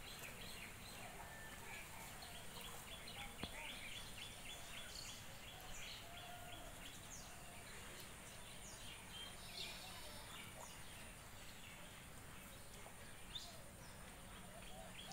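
Faint outdoor ambience with birds calling: runs of quick high chirps and a few lower warbling notes, over a steady thin high-pitched hum.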